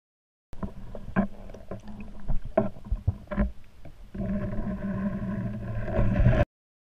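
Underwater recording with a diver's gear close to the microphone: scattered knocks and clicks from about half a second in, then a steady rumble with a low hum from about four seconds in, cutting off suddenly near the end.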